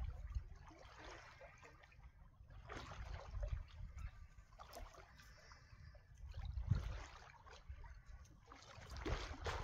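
Sea water sloshing and splashing around a camera carried by a swimmer, in irregular surges over a steady low rumble of water moving against the microphone.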